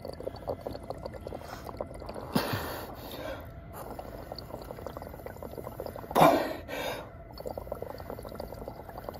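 Exhaled breath blown through a drinking straw into a flask of blue indicator solution, bubbling steadily, broken twice by loud gasping breaths, a little over two seconds in and about six seconds in. The blower is out of breath from climbing stairs.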